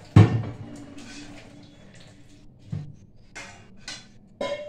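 Steel cookware and a serving ladle clattering: one loud knock just after the start, then scattered lighter clinks and scrapes of metal on metal over a faint steady hum.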